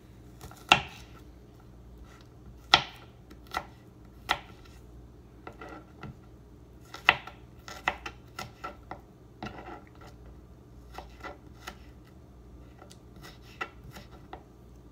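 Kitchen knife slicing garlic cloves on a plastic cutting board: irregular taps of the blade against the board, three of them louder than the rest.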